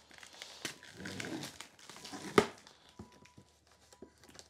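Hands handling and cutting open a shrink-wrapped cardboard box: plastic wrap rustling and scattered light taps, with one sharp click about two and a half seconds in.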